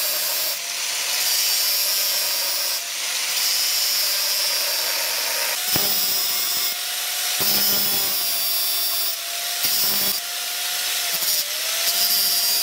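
Angle grinder grinding a steel knife blank cut from a tractor disc: a steady motor whine under the harsh rasp of the disc on steel, the grind easing and biting again every couple of seconds. The whine dips briefly near the end as the disc is pressed harder.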